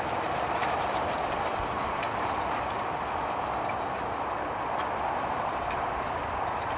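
Case tractor running steadily under load while pulling a plough, a continuous mechanical rumble with faint scattered clicks and knocks.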